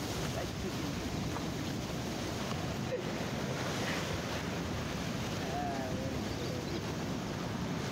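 Ocean surf breaking and washing over rocks: a steady rush of white water.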